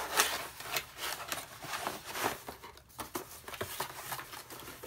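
A small packaging box being opened and handled by hand: irregular rustling, scraping and crinkling of packaging.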